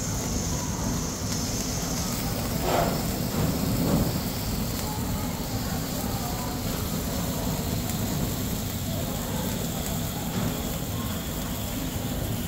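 Flambé flames burning over a domed dish, together with the fizzing crackle of tabletop sparklers: a steady noisy hiss with a couple of brief swells about three and four seconds in.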